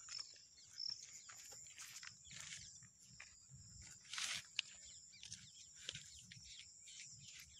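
Faint footsteps and rustling on dirt and grass, a scatter of soft irregular scuffs over a steady faint high hiss.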